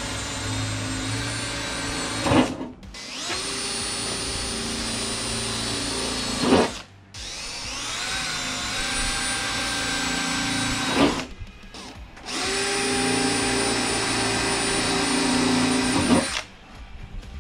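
Hand-held power drill boring holes through the sheet-metal front guard of a Nissan GQ Patrol: four runs of a few seconds each with a steady motor whine, each ending in a short sharp noise before a brief pause.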